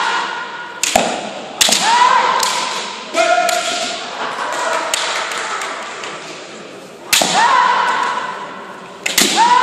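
Kendo fighters' kiai, long yells that rise and then hold, coming with the sharp cracks of bamboo shinai strikes and stamping feet on a sports hall floor, several times over with a lull in the middle.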